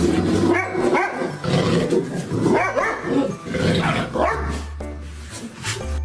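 A dog barking and yowling in a run of several short, pitch-bending calls, over background music.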